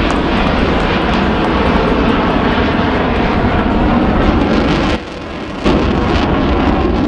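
Jet noise from a USAF Thunderbirds F-16 flying past low with its smoke on, loud and steady, dipping briefly about five seconds in.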